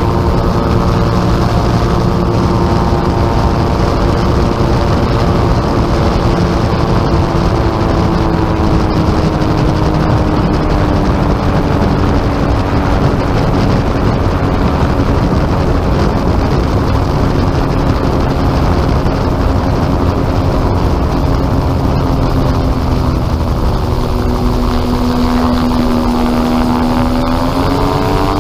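Gyrocopter engine and propeller running loudly over a rush of wind, heard from on board during a roll down the runway. The engine note eases slowly lower, then rises sharply near the end as power comes up for takeoff.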